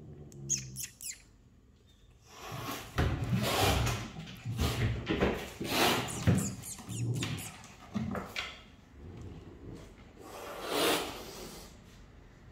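Savannah cats hissing and growling at each other in a run of bursts, the tense warning sounds of cats meeting cautiously. Short high gliding calls come near the start, and one last hiss comes near the end.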